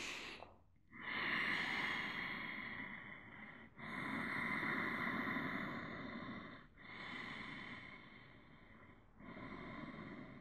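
A person breathing slowly and audibly: four long, even breaths, alternating inhale and exhale, each lasting two to three seconds with brief pauses between.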